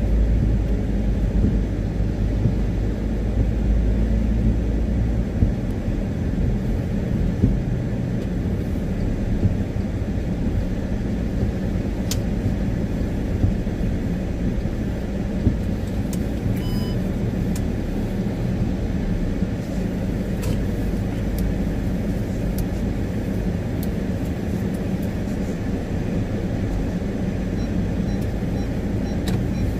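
Steady tyre and engine rumble heard inside a car's cabin while driving on a wet road, heavier for the first few seconds and then easing. Scattered light ticks and one short beep about two-thirds of the way through.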